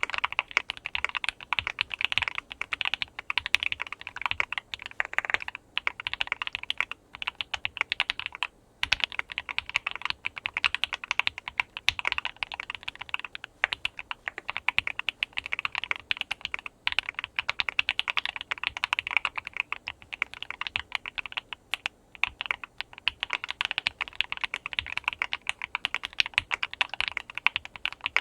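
Fast, continuous typing on an OwLab Mr Suit mechanical keyboard with lubed and filmed SP Star Meteor White switches, a POM plate, case, PCB and PE foam and PBT keycaps, with a few brief pauses. The key strikes sound somewhere in between thocky and clacky.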